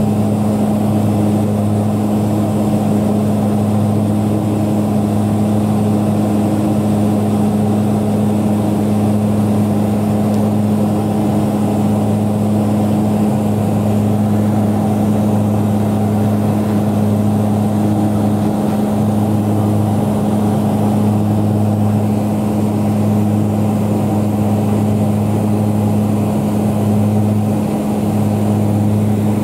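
A turboprop airplane's engine and propeller heard from inside the cabin in cruise flight: a loud, steady low drone with two strong low tones over an even rushing hum.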